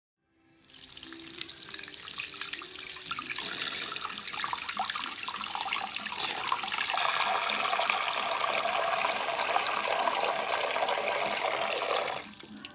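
Water running from a bathroom sink tap and splashing into the basin over a small plastic doll held in the stream. The splashing grows fuller about three and a half seconds in and falls away just before the end.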